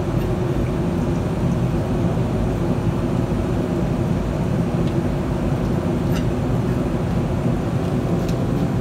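Steady roar of a gas flame, a constant low rumbling rush with a few faint ticks on top, as the cross piece is heated for riveting.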